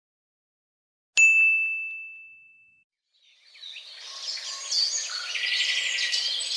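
A single bright ding about a second in, one clear ringing tone that fades away over a second or so. About halfway through, birds chirping fade in and keep going.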